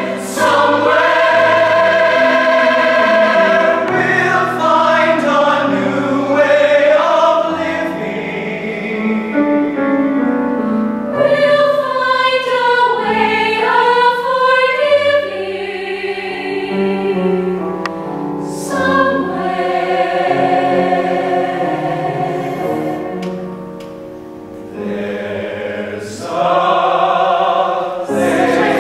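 A mixed choir of men's and women's voices singing sustained chords together. The singing grows softer a few seconds before the end, then swells up loudly again.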